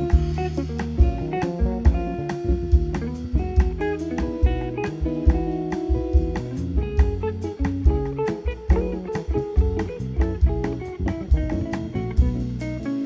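Live instrumental music from a small band: guitar over double bass, with a drum kit keeping time on cymbals and drums.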